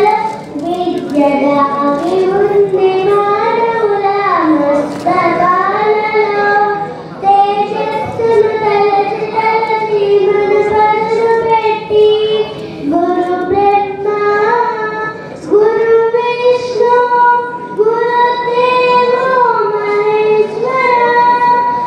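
A young girl singing solo into a microphone, with long held notes that waver and slide in pitch, broken by short pauses for breath.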